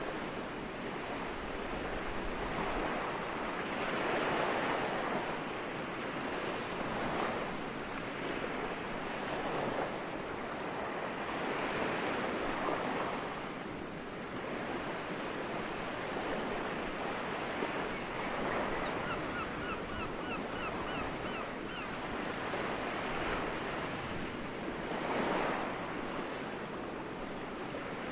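Small sea waves washing onto the shore in a continuous rush that swells and eases every few seconds. About two-thirds of the way through, a bird gives a quick run of about eight short calls.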